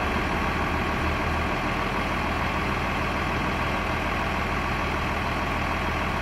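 Fire engine's diesel engine idling steadily, a low even hum.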